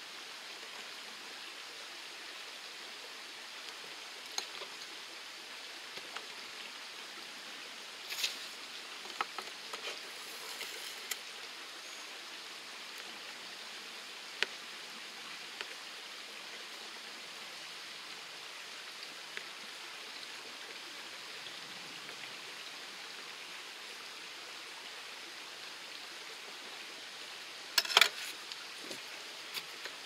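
Steady rushing of a mountain stream, with a few light knocks of a kitchen knife on a plastic cutting board scattered through it, and a louder brief clatter near the end.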